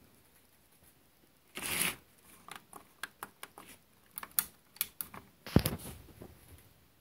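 A short rustle, then a run of sharp clicks and taps and one louder knock near the end: handling noises close to the microphone.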